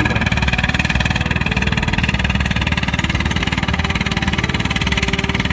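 Two-cylinder John Deere tractor engine idling steadily with an even, rapid beat.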